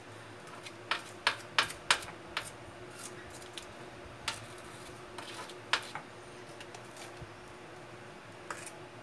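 About a dozen light, sharp clicks and taps, irregularly spaced, from handling the small tool, the plastic cup of grout paste and the phone while the paste is worked into the gap between sink and wall tiles.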